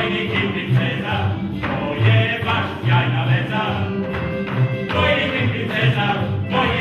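Music with voices singing over repeated bass notes.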